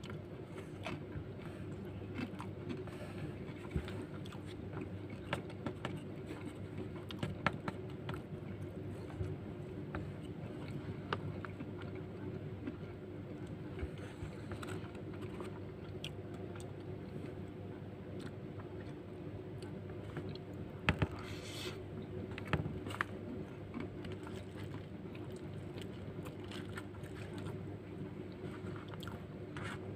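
Eating sounds: chewing rice and sambal, with a spoon scraping and clicking against the paper wrapper and banana leaf, over a steady low hum. A couple of sharper clicks stand out about two-thirds of the way through.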